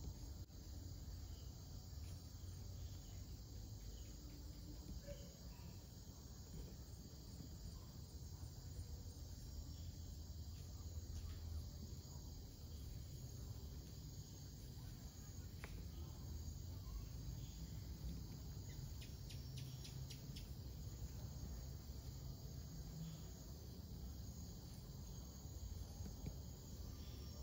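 Faint, steady chirring of night insects over a low rumble, with a few soft ticks about two-thirds of the way through.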